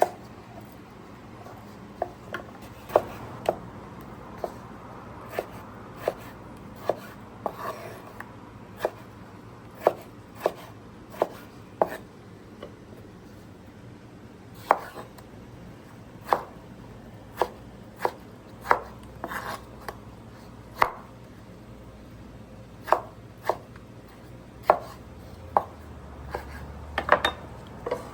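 Knife chopping food on a cutting board in single, unhurried strokes, each a sharp knock, about one every half second to a second, sometimes two close together.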